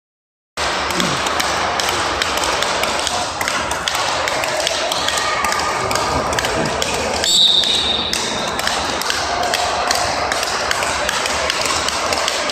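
Speedball rackets striking the ball tethered to its pole, a continuous string of sharp taps, over a murmur of voices in the hall. A brief high-pitched tone sounds about seven seconds in.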